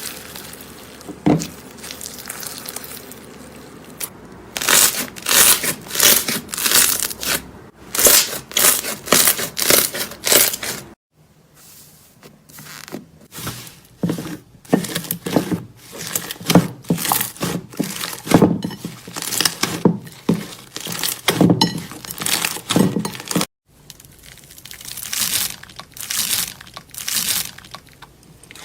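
Slime being squeezed, poked and stretched by hand, giving repeated crackling, crinkly pops. It comes in several takes with abrupt cuts between them.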